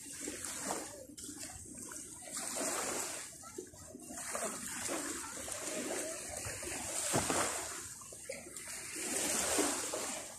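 Seawater splashing and washing, swelling and fading every few seconds.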